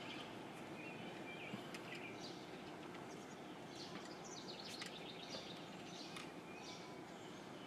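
Faint outdoor background: small birds chirping now and then over a low steady hiss.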